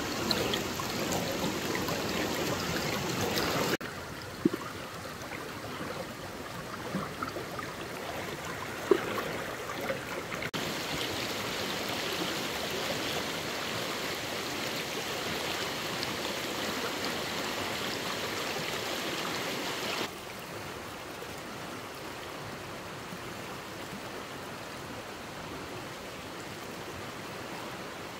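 Rushing stream water, a steady noise whose level and tone change abruptly a few times, with two brief knocks or splashes near the start.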